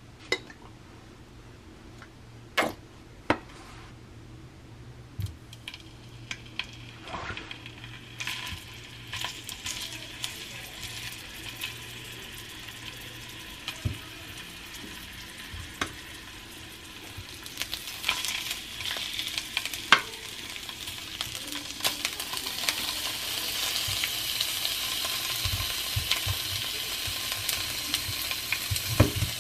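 Sausages and sliced potatoes frying in oil in a frying pan: a sizzle that starts several seconds in and grows steadily louder. Sharp clicks and taps from a slotted turner against the pan are scattered through it.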